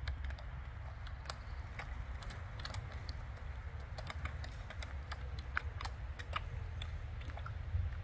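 Fish feeding on floating bread at a pond's surface: a scatter of small irregular clicks and pops as their mouths break the water, over a steady low rumble.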